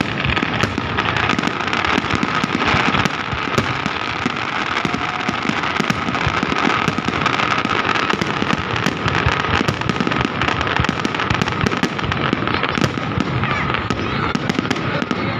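Fireworks display going off in a dense, continuous barrage of bangs and crackles, with a thin steady high tone running underneath.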